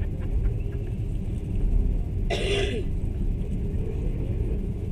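Passenger train running, a steady low rumble heard from inside the carriage. One short burst of noise comes about two and a half seconds in.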